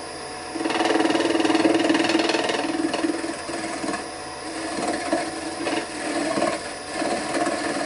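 Wood lathe running while a lathe knife (CL Woodturning Lathe Knife Evolution) is pressed into the spinning wood: a steady motor hum, then about half a second in a loud scraping cut that eases off into shorter, lighter cuts.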